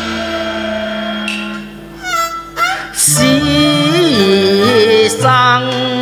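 Cantonese opera accompaniment band playing: held notes for the first few seconds, then about three seconds in a louder melodic line with a wavering, vibrato-laden pitch takes over.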